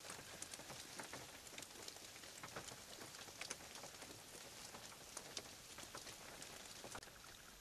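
Light rain falling steadily and faintly, with many separate drops ticking close by, several each second.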